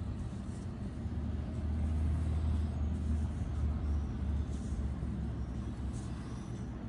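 A low steady rumble that swells louder in the middle and eases off again, with a few faint light clicks.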